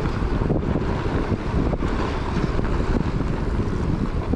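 Wind buffeting the microphone of a moving electric bike, a steady rushing rumble, strongest in the low range.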